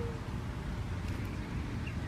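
Steady outdoor background noise, with a short bird chirp that falls in pitch right at the end.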